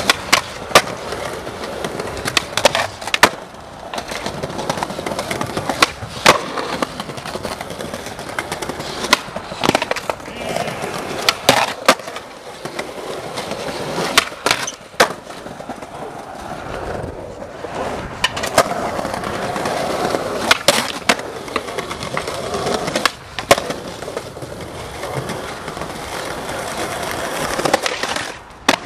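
Skateboards rolling over stone paving, with a run of sharp clacks as boards are popped, land and hit granite ledges, and the trucks scrape along the ledge edges.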